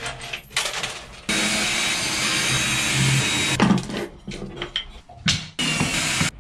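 Ryobi cordless drill/driver running in bursts against a boat cabin wall panel: one long steady run of about two seconds, then two short bursts near the end, after a second of handling clatter.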